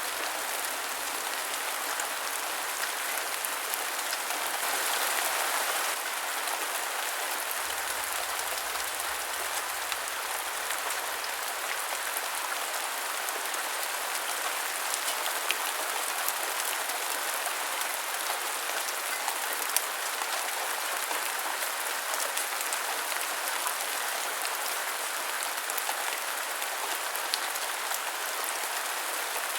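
Steady rain falling and pattering on a surface, with scattered sharper drop ticks; it swells briefly about five seconds in.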